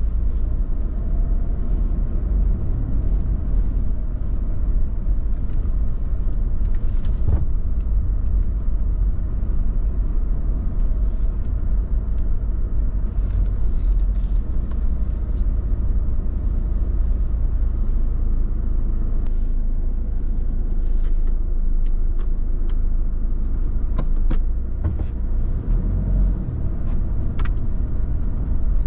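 Car driving slowly, heard from inside the cabin: a steady low rumble of engine and tyres, with a few faint clicks.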